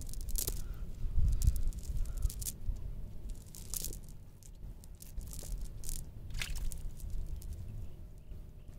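Cast net being handled on sand: the mesh rustles and its sinkers click in irregular bursts as hands work through it, over a low rumble.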